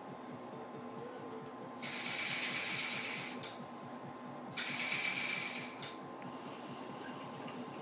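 Hookah water base bubbling as smoke is drawn through the hose, in two pulls of about a second and a half each, both starting suddenly.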